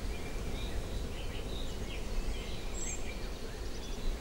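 Countryside ambience: scattered short chirps of small birds over a low, steady rumble.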